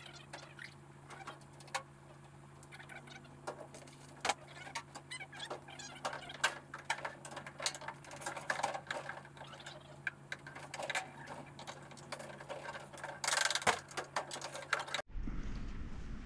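Handling noises as styrofoam packing blocks are worked out from under a steel roller cabinet on a trailer: irregular knocks, scrapes, squeaks and rustling over a steady low hum. Near the end the sound cuts abruptly to a low rumbling room noise.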